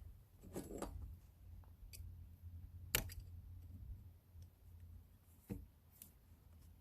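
A few sharp metallic clicks, the loudest about three seconds in, from snap ring pliers and tools working at the input-shaft snap ring of an NP271D transfer case, over a low steady hum.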